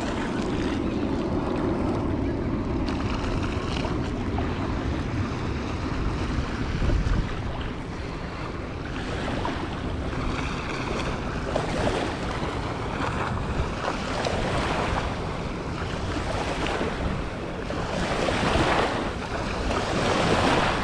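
Small surf lapping and washing up on a sandy shoreline, swelling several times with the biggest wash near the end, with wind buffeting the microphone.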